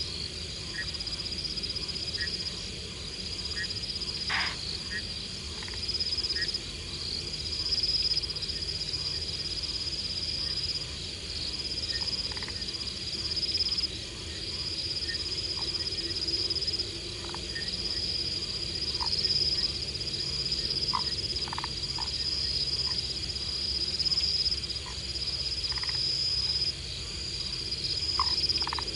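Night chorus of insects: a steady high-pitched trill that pulses on and off every second or two, with scattered short chirping calls over it.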